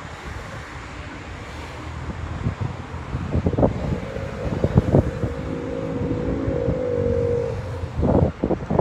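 Wind buffeting the phone's microphone, a low gusty rumble with scattered knocks. About halfway through, a steady held tone from an unclear source sounds for three to four seconds, wavering slightly before it stops.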